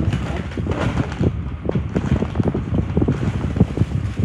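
Paper and plastic shopping bags rustling and crinkling as they are rummaged through, with a plastic bag pulled out and crumpled in the hands; a dense run of irregular crackles.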